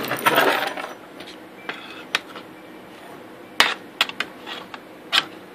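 Small hard objects clicking and clinking as tools and a bare circuit board are handled on a workbench. A short rustle at the start is followed by a handful of sharp, separate clicks, the loudest about three and a half and five seconds in.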